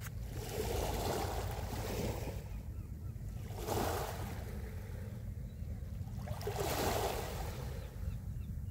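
Small waves breaking and washing up a pebble beach, three in a row, each a rush of surf that swells and falls away.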